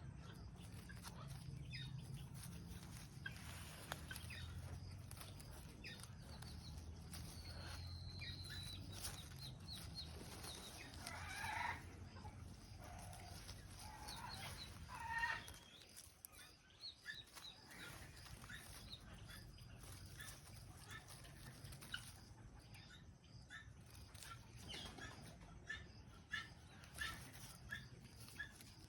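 Parrot chirping and calling in short, scattered notes, with a falling whistle and a louder squawk about halfway through. A low steady hum sits underneath for the first half.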